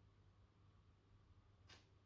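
Near silence: a faint steady low hum from a 1977 Orient Deluxe 48-inch ceiling fan's motor, with one brief click near the end.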